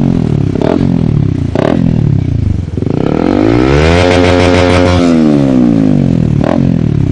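Honda CB150R's single-cylinder engine, stock, revved through an aftermarket Scorpion Rainbow full-stainless exhaust. The revs fall away with a few short pops, climb again about three seconds in, hold high for about a second, then drop back down.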